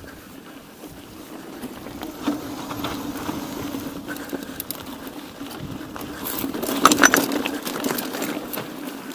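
Mountain bike riding over a rough dirt track: tyres crunching and the bike rattling, over a steady low hum, with a denser burst of clattering about seven seconds in.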